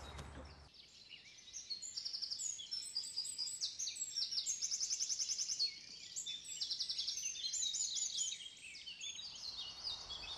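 Several songbirds singing at once: a dense chorus of overlapping chirps, whistles and fast trills.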